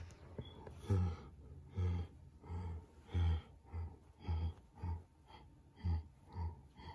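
A person making short, repeated grunting vocal sounds, about nine in all, roughly one every two-thirds of a second, voicing toy animals being moved across a carpet.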